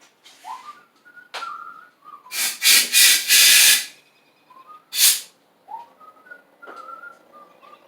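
Compressed-air blow gun blasting air into a push mower's fuel tank to clear it out: a cluster of loud hissing blasts about two to four seconds in, the last one held longest, and one more short blast about five seconds in. Between the blasts a person whistles a few short notes.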